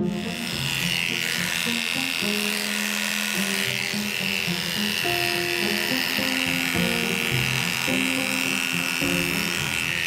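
Cordless electric dog clippers running steadily while shaving through a matted coat.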